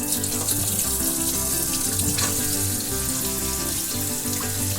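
Kitchen tap running steadily into a sink, water splashing as the raw buffalo meat is washed under it.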